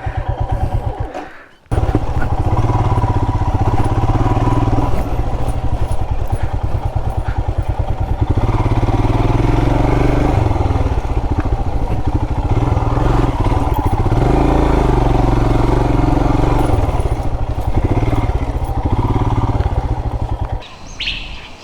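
Royal Enfield Himalayan's single-cylinder engine running as the motorcycle is ridden, with a steady exhaust beat. There is a brief gap about a second in, and the engine sound stops shortly before the end.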